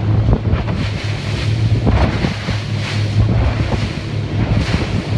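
Wind buffeting the microphone and water rushing and slapping against the hull of a 26 ft center-console motorboat under way in a swell, over the boat's steady low engine hum.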